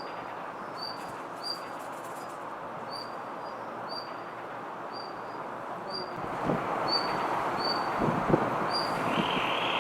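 Blue rock thrush calling over and over: short, high, slightly falling notes at about one to two a second, not a full song. A background rush grows louder about two-thirds of the way through, with a few low thumps.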